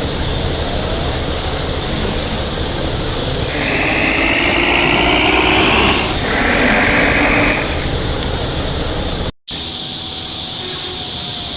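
Fully laden Isuzu Giga truck's diesel engine running with a low, growling rumble. A louder, higher-pitched sound rises over it twice around the middle, and the sound drops out for a moment about nine seconds in.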